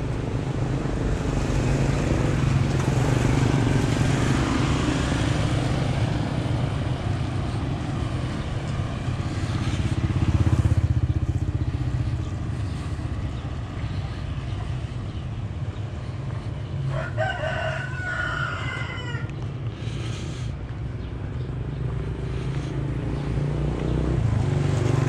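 A rooster crowing once, a call about two seconds long, about two-thirds of the way in, over a steady low rumble that swells briefly near the middle.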